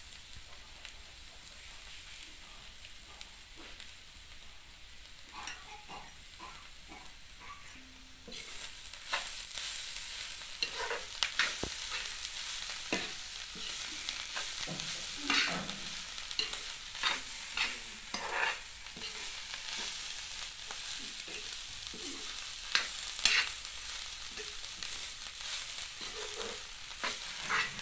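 Steel spatula stirring and scraping leafy greens with grated coconut in a hot wok, with a sizzle under it. It is quieter for about the first eight seconds, then the stirring turns louder with many short scrapes.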